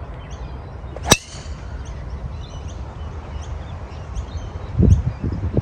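A driver strikes a golf ball off the tee about a second in: one sharp, loud crack. Birds chirp throughout, and there is a brief low rumble near the end.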